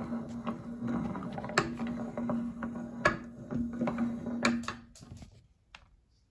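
Meat grinder forcing a candy bar through its cutter: gritty crunching over a steady low hum, with sharp cracks about one and a half, three and four and a half seconds in. The grinding stops about five seconds in, leaving a few faint ticks.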